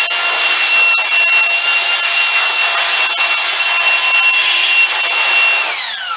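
Ryobi portable cordless inflator, fitted with a small nozzle tip and used as a blower to clear metal chips, running flat out with a steady high-pitched motor and fan whine. Near the end it is switched off and winds down, the whine falling in pitch.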